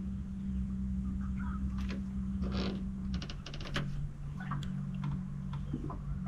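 Boat motor humming steadily at low speed, dropping in pitch about three seconds in, with scattered light clicks and ticks over it.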